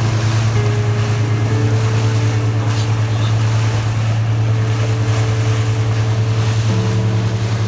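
Boat's engine running steadily, a loud low pulsing drone, with water and wind noise over it.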